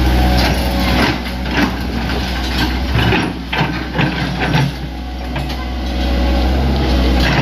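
Hitachi Zaxis 100 excavator's diesel engine running steadily with a deep hum, with short knocks and scrapes scattered through.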